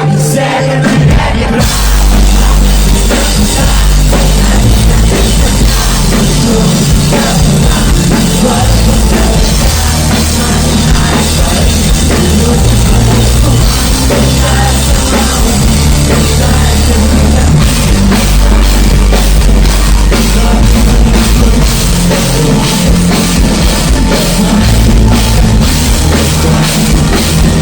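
Live rock band playing loud, with a heavy drum kit and bass; the full band comes in about two seconds in.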